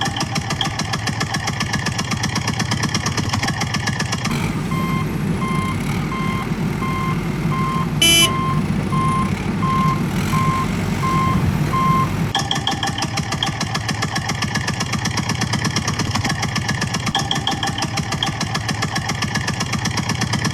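Heavy vehicle diesel engine running with a steady, rapid chugging pulse, and a reversing alarm beeping at an even pace, about once a second, from about four seconds in to about twelve seconds in. A brief sharp click sounds about halfway through.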